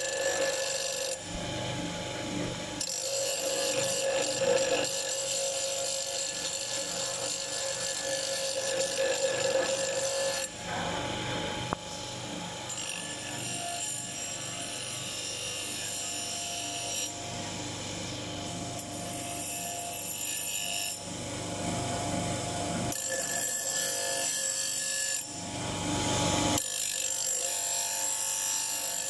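Bench grinder's abrasive wheel grinding an iron hammer, sparks flying: a steady motor hum under a harsh grinding noise. The grinding changes in strength several times as the iron is pressed against the wheel and eased off.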